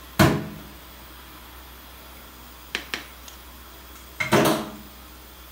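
Kitchenware clattering: a sharp knock with a short ring just after the start, two light clicks a little past halfway, and another ringing knock about four seconds in.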